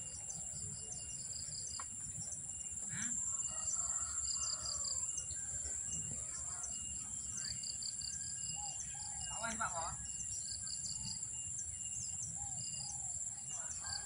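Outdoor insect and bird ambience: a steady high-pitched insect trill with short chirps repeating in groups, and a few bird calls, the loudest about two-thirds of the way through.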